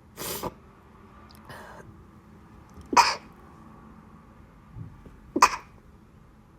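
A woman sneezing: a short breathy burst at the start, then two loud, sharp sneezes about three and five and a half seconds in.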